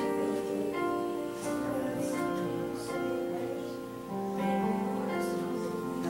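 Slow worship music with long held notes.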